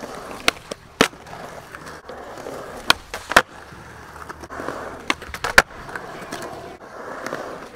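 Skateboard wheels rolling on smooth concrete, with sharp clacks of the board hitting the ground in three pairs about half a second apart, like pops and landings.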